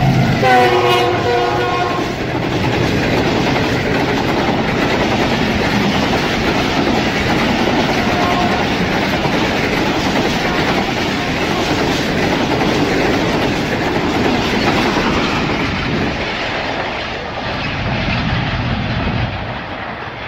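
A Pakistan Railways express passenger train, hauled by a GE U40 diesel locomotive, passing close by at speed, about 80 km/h. The locomotive's horn sounds in the first couple of seconds, then the coaches rush and clatter past over the rails. The noise dies down near the end as the last coach goes by.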